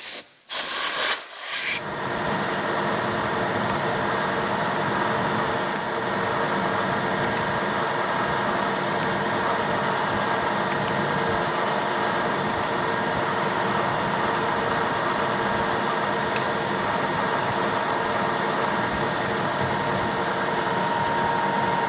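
Milling machine spindle running steadily, a constant machine hum made of several fixed tones, while a drill bores a screw hole through a small steel thrust plate. Two short, loud bursts of hiss come in the first two seconds.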